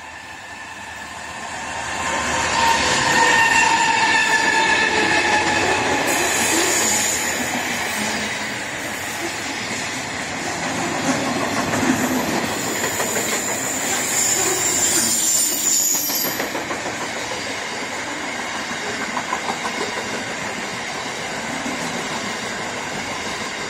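Freight train of box wagons and containers approaching and passing at speed close by: a steady rumble and rattle of wagons with wheel clatter on the rails. A held chord of several tones sounds as it nears, about two to six seconds in, and high squeals cut in briefly around seven seconds and again from about thirteen to sixteen seconds.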